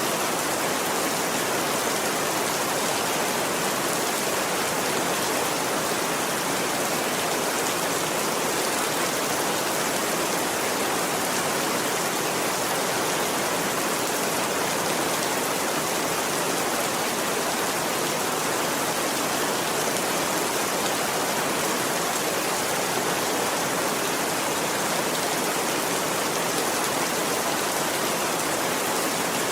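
Steady rain falling, an even unbroken hiss with no thunder and no separate drops or surges standing out.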